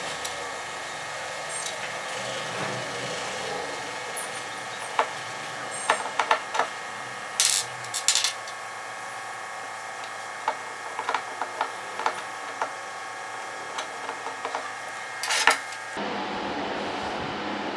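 Scattered light metal clicks and taps as small set screws are handled and threaded into the tapped holes of a homemade metal fly cutter body, over a steady hum. About sixteen seconds in, the hum gives way to a broader, louder hiss.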